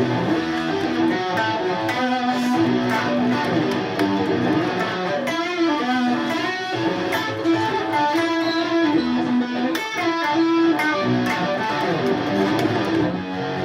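Instrumental guitar music: a passage of a song played on guitar, with no singing.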